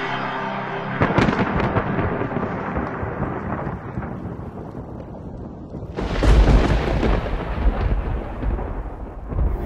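Two thunderclaps: a sharp crack about a second in that rolls off into rumbling, then a second, deeper clap around six seconds in with a long low rumble.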